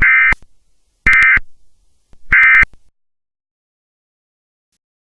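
Emergency Alert System SAME digital data tones sounding the end-of-message code: three short bursts of warbling electronic tone about a second apart.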